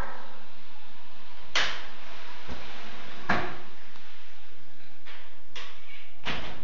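A few irregular knocks or thumps, about five, the loudest about one and a half and three seconds in.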